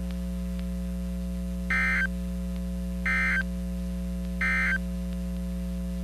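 Emergency Alert System end-of-message signal on a NOAA Weather Radio broadcast: three short, identical bursts of screechy digital data tones, a little over a second apart, over a steady electrical hum.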